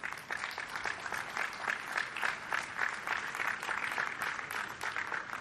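A crowd applauding, breaking out suddenly and keeping up steadily as a dense patter of many hands clapping.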